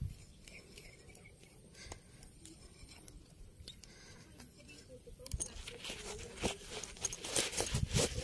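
Quiet at first, then from about five seconds in a busy run of scrapes and small sharp clicks of gear being handled.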